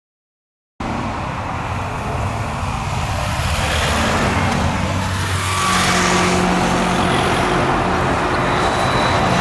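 Jet engine noise from an Airbus A350-1000's Rolls-Royce Trent XWB-97 engines: a steady broad rush with a low hum, starting abruptly about a second in and slowly growing louder.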